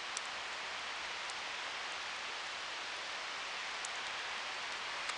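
Steady hiss of a quiet night-time outdoor scene, with a few faint ticks and no train yet audible.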